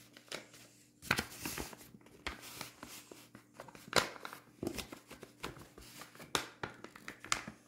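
Folded sheets of paper being handled and flexed: scattered short rustles and crinkles with a few light knocks on the table, the loudest about four seconds in.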